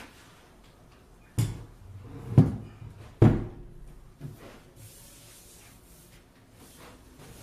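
Wooden table with metal hairpin legs being set down on a concrete floor: three solid thumps about a second apart, then a few lighter knocks as it is shifted into place.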